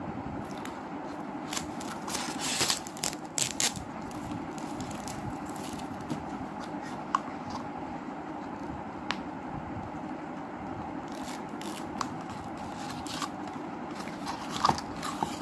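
Hands handling cardboard ribbon spools and unwinding a polyester ribbon: scattered scrapes, rustles and sharp clicks, busiest in two spells near the start and near the end, over a steady low hum.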